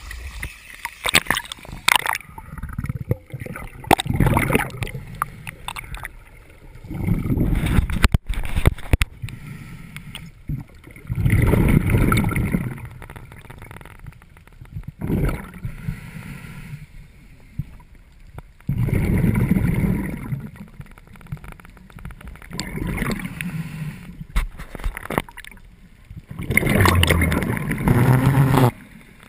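Scuba regulator exhaust bubbles heard under water: a loud bubbling rush about every four seconds, one with each exhalation. The first few seconds hold splashing and sharp knocks at the surface.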